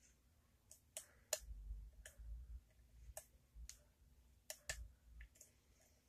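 Faint, irregular metallic clicks of a lock pick and tension wrench working the pin tumblers of a small triangular CISA lock, with dull low bumps from handling.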